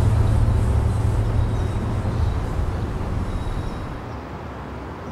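Low rumble of a passing vehicle, fading away.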